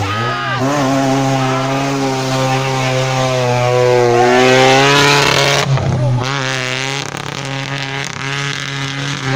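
Off-road 4x4 vehicle engine running hard. Its pitch rises to its loudest about four to five seconds in, then drops back sharply a little before six seconds.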